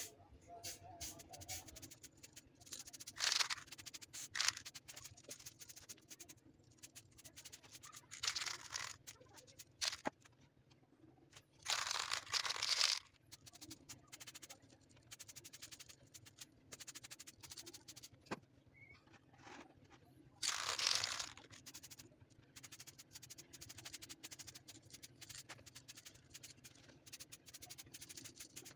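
Aerosol spray-paint can hissing in several short bursts of about a second each, spaced a few seconds apart.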